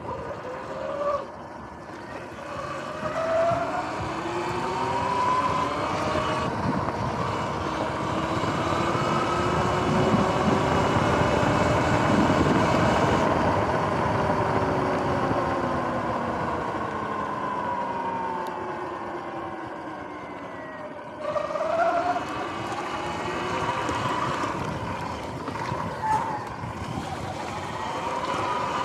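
Electric dirt bike's motor whining in several pitches at once while riding, the whine climbing as the bike speeds up, loudest about halfway through, then sliding down as it slows and climbing again sharply near the end, over a steady rush of tyre and wind noise.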